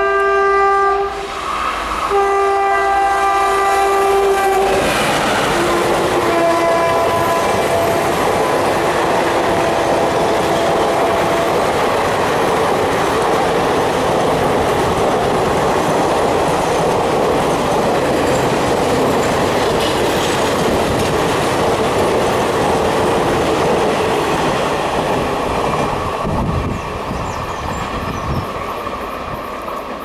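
WAP-4E electric locomotive's horn blowing long blasts with a short break about a second in. Its pitch drops as the locomotive passes about five seconds in, and the lower horn carries on until about twelve seconds in. Then the express's coaches rush past at speed, the noise easing off near the end.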